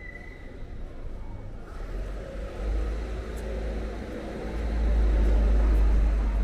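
A motor vehicle passing on the street: a low rumble that builds from about two seconds in and is loudest near the end.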